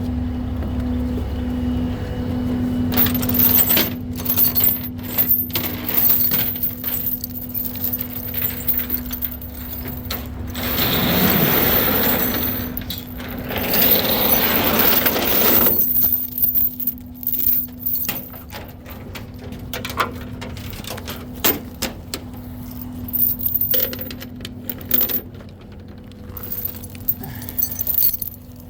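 Steel tow chains clanking and rattling as they are handled and laid out to chain down a skid steer on a flatbed, in scattered metallic clinks, with a louder rushing, scraping stretch in the middle. A steady engine hum runs underneath.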